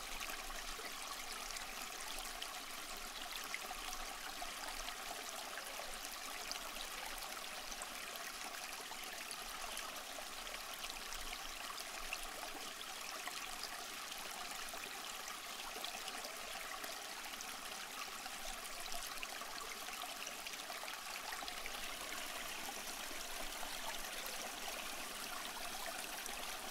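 Steady trickling, running water.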